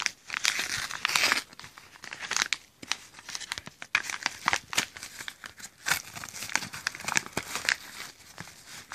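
A paper mailing envelope being torn open and crinkled by hand, with irregular rips and crackling handling noise. The loudest tearing comes in the first second and a half, with further rips every second or two after.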